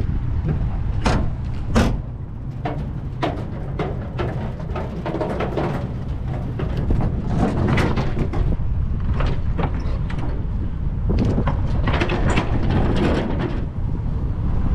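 Bicycle rattling and clicking over bumps in the road, many sharp clicks at irregular intervals, over a steady low rush of wind on the bike-mounted GoPro's microphone.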